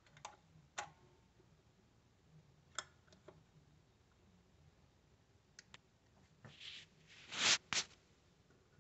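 Control levers on a Garrard Z2000B automatic turntable click as they are flipped: a handful of faint clicks over the first several seconds. Near the end come two louder, short rasping noises.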